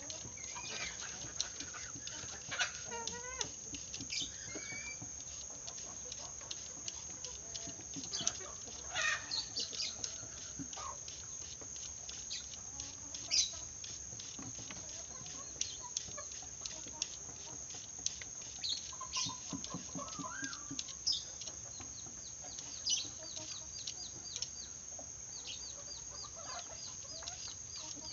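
Birds giving short, scattered calls and chirps over a steady high-pitched insect drone.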